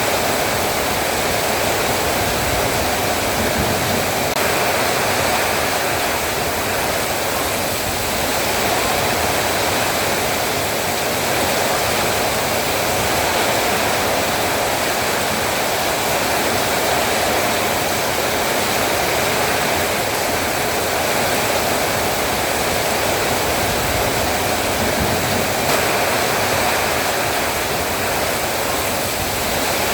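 Heavy rain pouring steadily, a dense even hiss of falling water.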